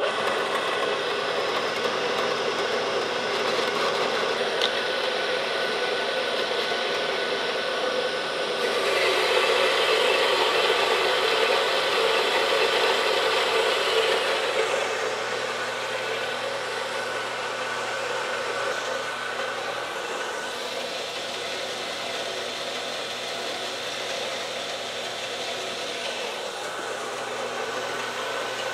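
Small horizontal metal-cutting bandsaw starting up suddenly and running steadily, its blade cutting through a 1¾-inch 1144 steel round bar. The cutting gets louder for a few seconds partway through, then settles back.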